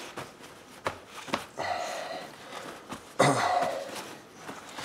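Paper towels rustling as they are pressed and patted onto wet, marinated chicken wings and peeled back off, with a couple of sharp taps about a second in and a louder rustle about three seconds in.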